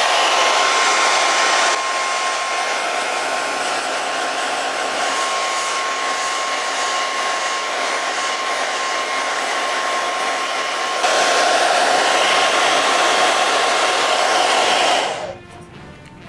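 Handheld hair dryer blowing, a steady rush of air with a thin motor whine. It drops in level about two seconds in, comes back louder about eleven seconds in, and is switched off shortly before the end.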